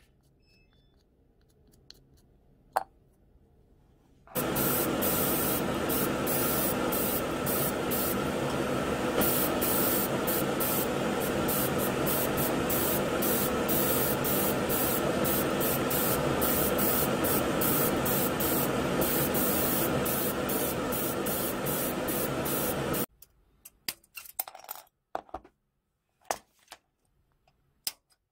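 Paint being sprayed onto a small plastic model part inside a spray booth: a steady hiss with the booth's hum under it, broken by many short pulses of spray, starting about four seconds in and cutting off abruptly about four-fifths of the way through. A few light clicks follow.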